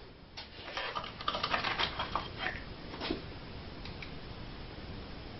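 Light clicking and rattling of small hardware being handled over about the first three seconds, as a cordless drill is picked up and a wood screw is set on its driver bit. It then goes quiet, with no drill running.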